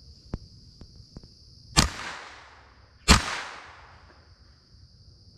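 Two shotgun shots about a second and a quarter apart, the second one louder. Each trails off in a long echo through the woods, over a steady high buzz of insects.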